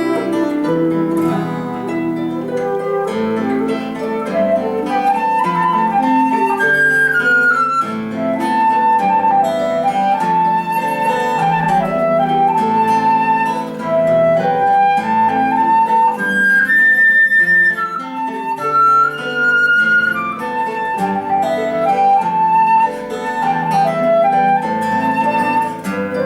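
Instrumental folk music: a flute plays a flowing melody over plucked Celtic harp accompaniment.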